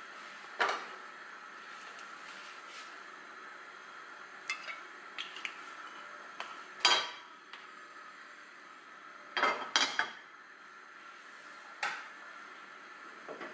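Cookware being handled on a gas stove: a series of sharp knocks and clinks of the metal frying pan, oil bottle and utensils, over a steady faint background noise. The loudest clank comes about seven seconds in, with a quick clatter of several knocks around ten seconds.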